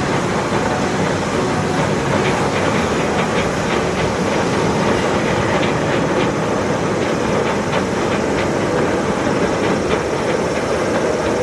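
Heavy rain falling steadily: a dense, even hiss that holds level throughout, with faint scattered ticks.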